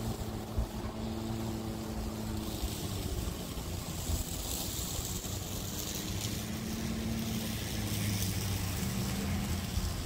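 A steady low engine hum, fairly distant, mixed with wind noise on the microphone.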